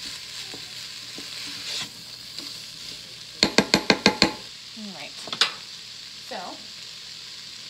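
Shredded chicken and vegetables sizzling in the hot inner pot of an electric multi-cooker as a wooden spoon stirs them. About three and a half seconds in, the spoon is rapped against the pot about seven times in quick succession, with one more knock a second later.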